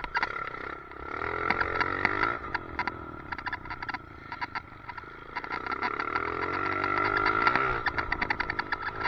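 Motorcycle engine revving up and down while riding, with a rapid clicking rattle from a loose helmet chin mount running through it.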